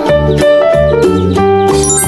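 Upbeat children's background music: bright keyboard notes over a steady bouncy beat.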